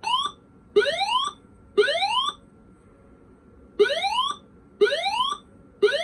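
Custom lockdown alarm tone from a Pertronic evacuation amplifier, played over its loudspeaker. Short tones rise in pitch, three of them about a second apart, then a pause of about two seconds, then three more.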